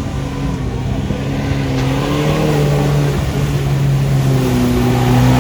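Engine of a UAZ off-road vehicle running and revving, its pitch wavering, getting louder over the last couple of seconds.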